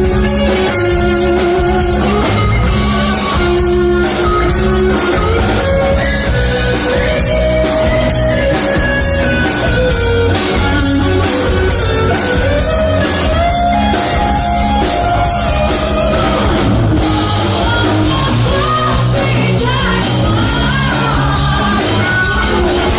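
A band playing a song: a singer over guitar and a steady drum beat.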